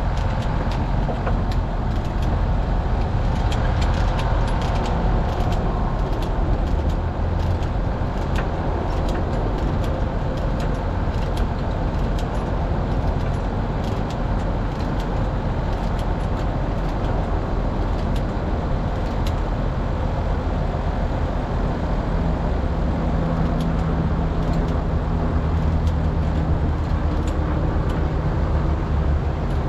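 Kobelco 210 excavator's diesel engine running steadily while its boom is worked, with scattered sharp clicks and clanks over the engine.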